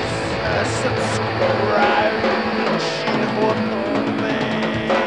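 Rock music with a drum kit and guitar.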